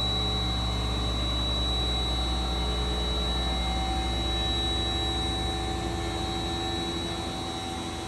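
CNC milling machine face-milling a flat surface: a steady machine whine with a constant high tone over a low hum, easing off slightly near the end.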